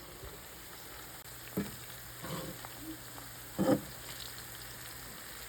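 Cut potatoes sizzling steadily as they deep-fry in a pan of corn oil, with three short knocks, the last and loudest about three and a half seconds in.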